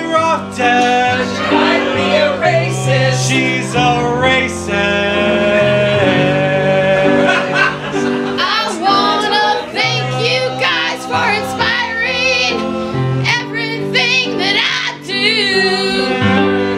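Live music: voices singing over an instrumental accompaniment of held chords that change every second or two.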